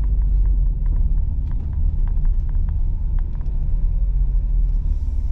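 In-cabin sound of a Ford Explorer ST's twin-turbo V6 through a 3-inch Thermal exhaust: a steady low rumble, with faint scattered light ticks.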